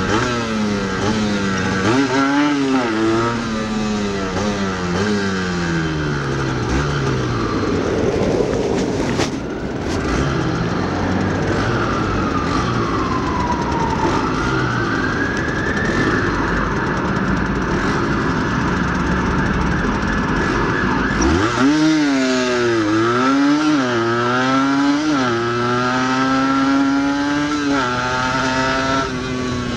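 Yamaha DT125X 125cc two-stroke single-cylinder engine with an Arrow exhaust, heard from on the bike. The revs rise and fall and settle to a steadier note through the middle, while a separate tone slides down and back up. About three quarters of the way through, it pulls away hard with several quick rises and falls in pitch as it changes up through the gears.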